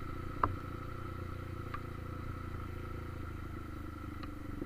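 Motorcycle engine running steadily at low revs on a wet dirt road, with one sharp knock about half a second in and a few light ticks.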